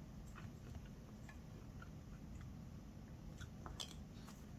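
Faint chewing and mouth sounds of someone eating, with a few soft scattered clicks, the clearest about four seconds in, over low room hum.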